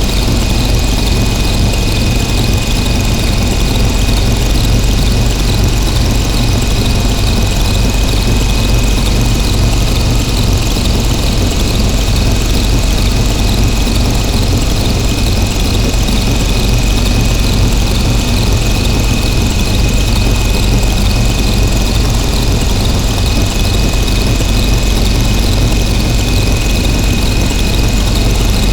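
Harsh noise drone from synthesizers fed through distortion pedals: a loud, unchanging wall of distorted noise with a heavy low rumble and a thin steady high whine.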